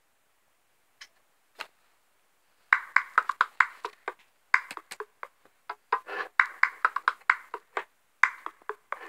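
A fast, irregular run of light clicks and taps, several a second, starting about three seconds in with a couple of brief pauses.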